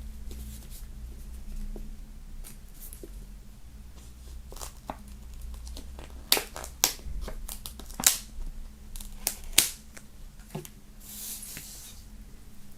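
Hands handling a boxed album set's packaging: a run of sharp clicks and taps through the middle, then a short rustle near the end.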